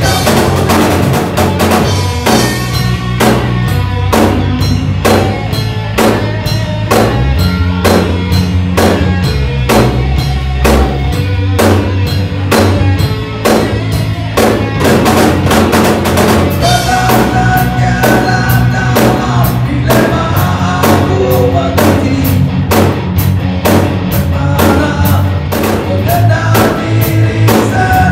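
Rock band playing live with no vocals: a drum kit keeping a steady beat, with bass guitar and electric guitar, and a harmonica played over the top. The harmonica holds drawn-out notes at times.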